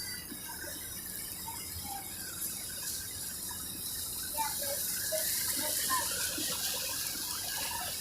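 Running water rushing steadily, such as a fountain or waterfall along a river walk, growing louder a few seconds in.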